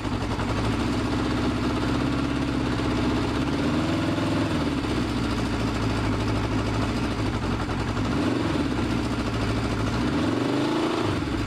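Honda CB500 Four's air-cooled inline four-cylinder engine running steadily, revved briefly three times, about four, eight and ten seconds in.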